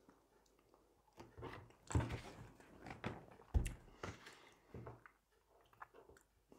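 A person eating: quiet, scattered chewing and mouth sounds, with a sharp knock about halfway through.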